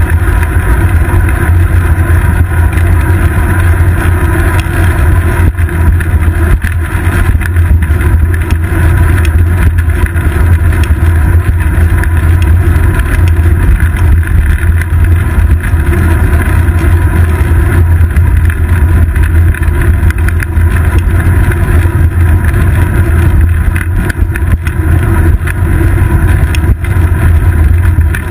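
Steady, loud low rumble of wind and road vibration picked up by a seat-post-mounted GoPro Hero 2 on a moving road bike.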